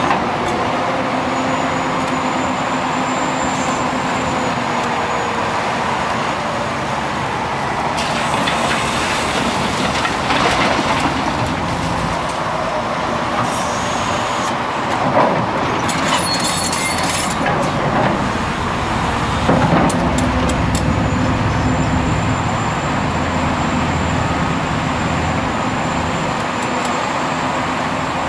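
Hitachi Zaxis 500LC excavator working: its diesel engine runs steadily under load while the bucket digs and loads soil, with clusters of clanks and scraping in the middle and a faint high whine at times.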